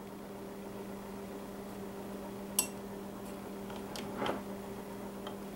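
A spoon clicks once against a glass jar, then digs and scrapes through dry cake mix inside it a little after four seconds in, over a steady low hum.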